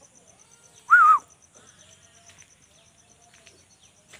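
A kitten meowing once, a short high wavering call about a second in. A faint, fast, even ticking runs underneath.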